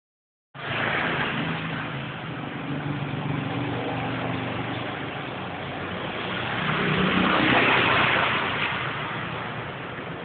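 Road traffic heard through a phone's microphone: a steady rush with a low engine hum, one vehicle growing louder and passing about seven to eight seconds in.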